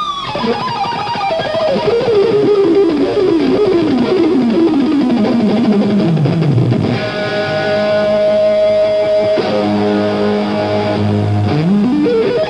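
Electric guitar solo played live on a Stratocaster-style guitar: rapid runs of notes cascading downward in repeating steps for the first six seconds or so, then a high sustained note, a lower held note, and a quick rising run near the end.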